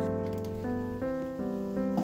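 Background music: a slow keyboard melody of held notes, changing about every half second.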